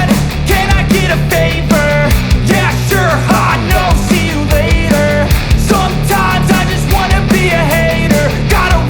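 Loud rock music with a steady beat, heavy bass and a lead line over it.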